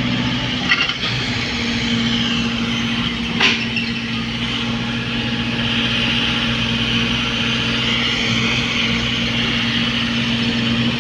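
Excavator's diesel engine running steadily, with a sharp knock of metal about three and a half seconds in.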